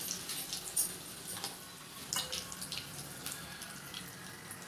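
A small pan of hot tempering oil with mustard seeds, cumin, curry leaves and asafoetida sizzling: a steady hiss with many scattered crackles and pops from the seeds.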